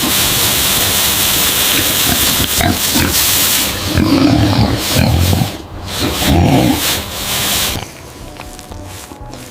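Pigs calling, with two loud pitched calls about four and six seconds in, over a steady rushing noise that drops away near the end.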